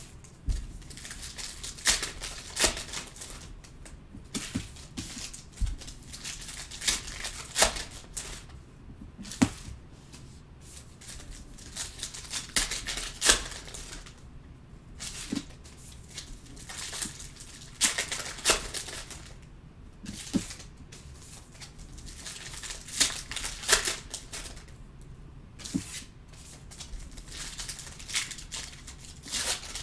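Plastic wrappers of 2019-20 Clearly Donruss basketball card packs being torn open and crinkled, with a stack of cards handled and flicked through by hand: irregular sharp crinkles, snaps and rustles.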